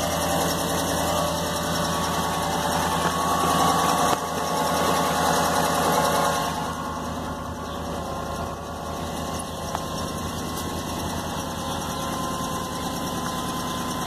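Jeep 5.7-litre Hemi V8 idling cold, with a rapid, even tick through the running. The owner takes the tick for an exhaust leak at the driver-side exhaust manifold, where one of the upper manifold bolts has broken, and not for the engine itself. The sound drops a little about halfway through.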